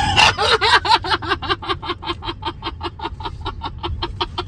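A man laughing in a long run of quick, even giggles, about six or seven a second, slowly growing fainter.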